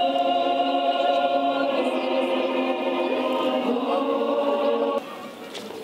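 A choir singing long held chords, cut off suddenly about five seconds in; quieter unpitched background noise follows.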